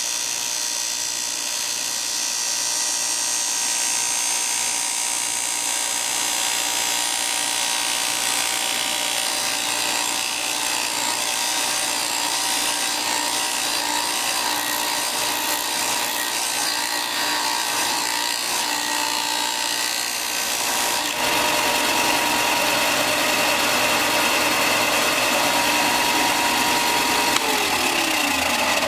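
Bauer 4-inch by 36-inch belt and 6-inch disc sander running, its 6-inch disc grinding the jagged peak off a piece of wood: a steady motor hum under the rasp of wood on abrasive. It grows louder about two-thirds of the way through, and near the end a tone falls in pitch.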